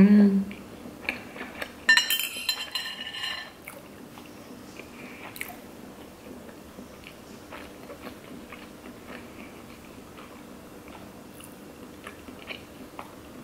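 A short hummed "mmm" through a mouthful of food. About two seconds in, a clink as metal chopsticks are set down on a ceramic bowl, ringing briefly. After that, only faint close-up chewing and small mouth clicks over a low steady room hum.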